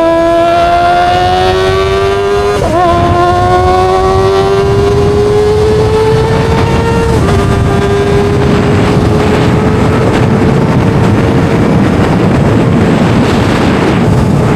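Kawasaki ZX-25R's 249 cc inline-four engine revving high under acceleration, its high-pitched note climbing slowly with two brief breaks at gear changes, about three and seven seconds in, then holding steady. Wind noise on the microphone builds as speed rises.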